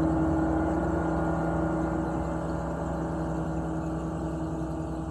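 A large gong ringing on after a single strike with a soft felt mallet: a deep, steady hum with a few held pitches that slowly fades.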